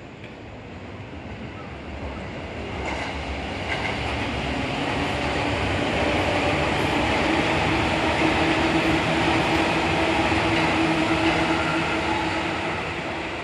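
Seibu 2000 series electric train running past at close range. It grows louder over several seconds and eases off near the end, with a steady motor whine over the wheel noise on the rails.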